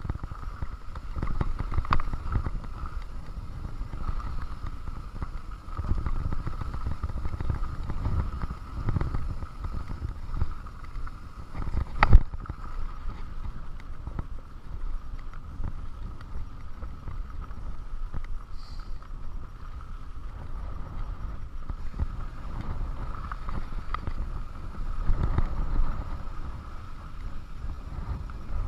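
Mountain bike ridden over a rough dirt and gravel trail: tyres rolling and the bike rattling over the stones, with wind buffeting the microphone in uneven surges and a thin steady whine underneath. A single sharp knock comes about twelve seconds in.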